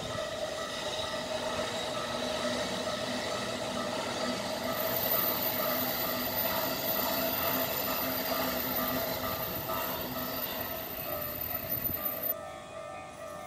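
A Japanese level crossing's warning bell rings steadily while an electric commuter train passes behind it with a running rumble and a high whine. Both stop abruptly near the end.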